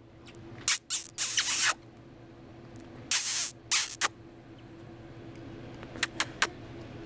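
Conures shifting in a fabric cat tube: several short bursts of hissing, rustling noise, then a few light clicks about six seconds in.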